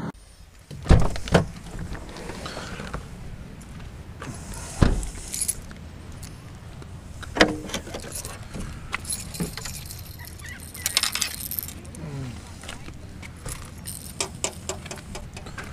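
A Jeep SUV's doors and rear hatch being opened and shut, with a few heavy thumps in the first five seconds. Then come clicks, rattles and rustling as fishing gear is handled out of the back.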